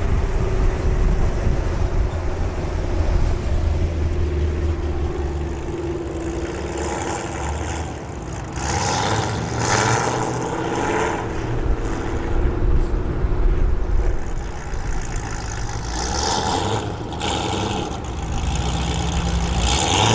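Muscle car V8 engine rumbling. From about eight seconds in, a few louder bursts of broader, hissier noise ride over the steady low rumble.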